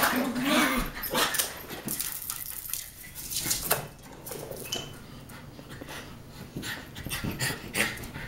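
Two Cairn terriers playing rough: a string of short yips, whimpers and play growls, loudest near the start.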